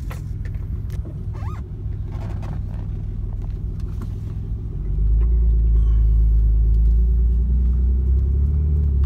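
1994 Toyota Supra Twin Turbo's 2JZ-GTE twin-turbo straight-six, through an HKS turbo-back exhaust, heard from inside the cabin: a low rumble at idle as the automatic is put into gear. About five seconds in it gets louder and stays louder as the car pulls away, the engine still cold.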